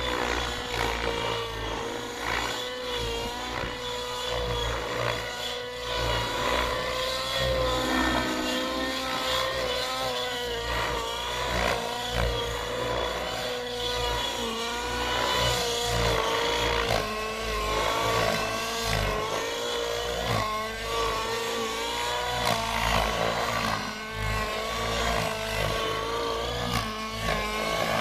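Align T-REX 700 nitro RC helicopter in flight: its two-stroke glow-fuel engine and rotor make a steady high whine that wavers slightly in pitch through the manoeuvres.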